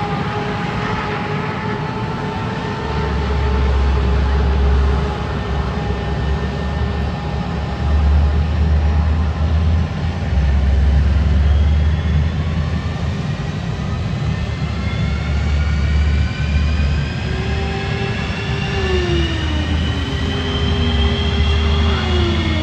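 Parked F-15 fighters' Pratt & Whitney F100 turbofan engines starting up on the ramp: a steady turbine whine, with several whines rising steadily in pitch from about halfway in as engines spool up. A heavy low rumble swells and fades throughout.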